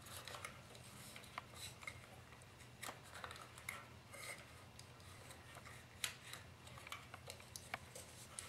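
Faint handling sounds of fingers on a plastic model truck's small hinged compartment and the wires inside it: scattered light clicks and rubs, over a low steady hum.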